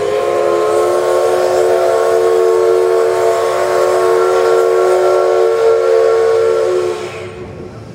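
The whistle of steam locomotive C62 2 blowing one long, loud blast, several notes sounding together as a chord. It cuts off about seven seconds in, leaving a brief hiss of steam.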